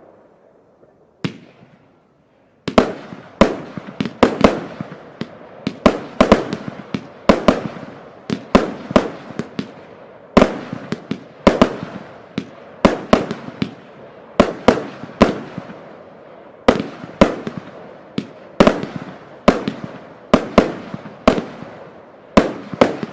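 Zena 'Hollywood' (Z39) consumer firework going off. After a faint hiss and a single pop, it fires a long, steady series of sharp bangs, about two a second, each trailing off briefly.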